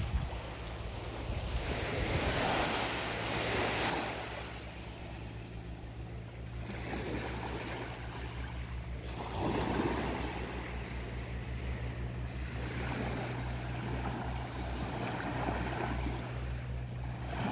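Small waves washing onto a sandy beach, swelling twice, with a low steady hum underneath.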